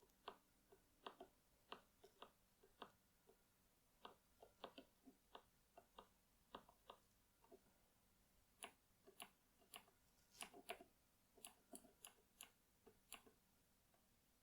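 Cherry mechanical key switches being pressed one after another, giving faint, irregular clicks. A little past halfway the clicks turn sharper and brighter.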